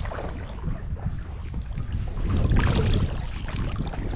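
Kayak paddle blades dipping and splashing in the water, over a low wind rumble on the microphone; the splashing is busiest about halfway through.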